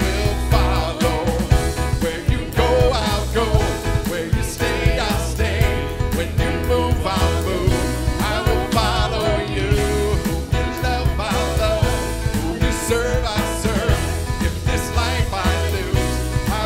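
Live contemporary worship band: several voices singing over electric keyboard and a drum kit keeping a steady beat.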